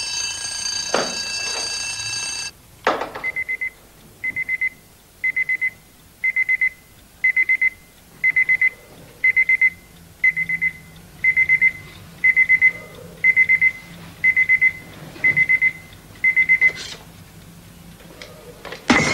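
Electronic alarm clock beeping in short groups of three or four quick high beeps, about one group a second, until it is switched off with a click. Before the beeping starts, a steady held chord of tones cuts off.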